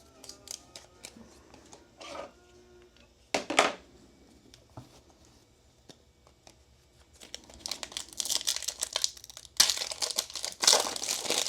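Foil wrapper of a trading-card pack being torn open and crinkled. There is one sharp rip about three and a half seconds in, then a long stretch of crackling wrapper near the end.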